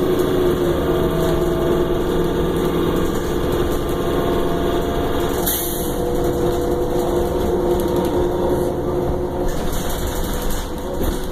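A 2009 Orion VII transit bus's engine and drivetrain running, heard from inside the passenger cabin as a steady hum with a brief hiss about halfway through.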